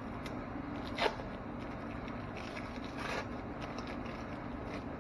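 Thin plastic film crinkling and scraping as individually wrapped cheese slices are peeled from their wrappers. A sharp crackle comes about a second in and another crinkly stretch about three seconds in, over a steady low hum.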